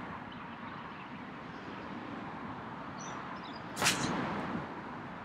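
A golf iron striking the ball off the tee: one sharp crack about four seconds in, the loudest sound, over a steady background hiss.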